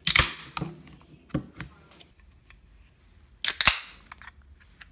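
Aluminium beer cans being cracked open by the pull-tab, twice: a sharp click and short hiss right at the start, and another about three and a half seconds in. Lighter clicks and a low knock of can handling fall between them.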